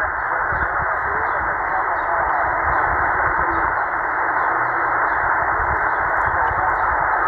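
Shortwave receiver's speaker hissing with band static on the 20-meter amateur band in upper sideband, the sound cut off above about 2.2 kHz by its narrow SSB filter. A weak sideband voice is briefly heard in the noise at the start, and faint high chirps repeat about twice a second.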